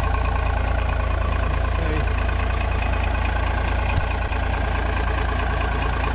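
Armoured truck's 6.4-litre turbo diesel engine idling steadily, with a single light tap about two-thirds of the way through.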